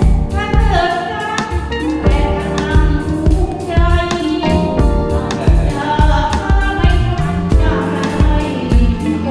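Music with several voices singing together over a steady drum beat.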